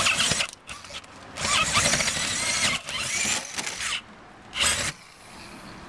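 Cordless drill with a 7/8-inch spade bit boring through a plywood panel, running in about four bursts: a short one at the start, two longer ones through the middle, and a brief one near the end.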